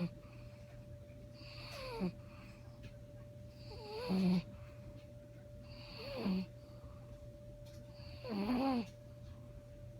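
Sleeping dog snoring, four snores about two seconds apart, each a whistling note that slides down in pitch and ends in a short low snort.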